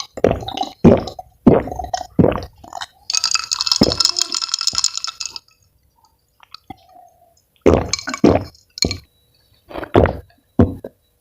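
Close-up drinking sounds: a series of loud gulps and swallows of a cold drink, with about two seconds of steadier clinking in the middle and a pause of about two seconds before the gulps start again.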